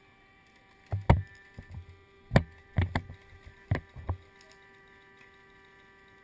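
Irregular thumps and knocks from a person moving on foot over the forest floor with a head-mounted camera: footfalls and gear jolting, about ten in the first four seconds, then they stop as the person settles into position.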